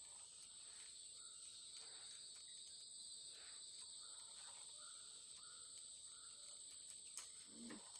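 Faint, steady, high-pitched drone of forest insects, with a couple of faint clicks near the end.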